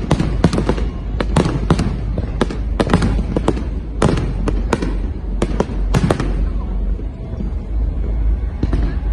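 Fireworks going off in a rapid series of sharp bangs and crackles, thinning out about six seconds in and leaving a steady low rumble.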